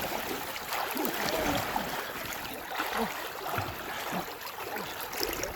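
River water splashing and trickling, a steady rushing wash with small irregular sloshes.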